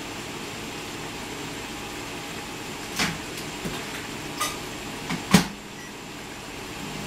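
Kitchen clatter: about five sharp clicks and knocks over a steady room hum, the loudest a little past five seconds in.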